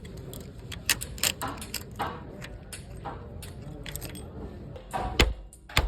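Metal tools and engine parts clinking and clicking as they are handled, with two heavier knocks near the end.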